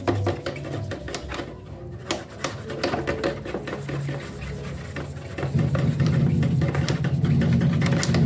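Scattered knocks and clicks of handling, then about five and a half seconds in a loud, steady, low engine drone sets in.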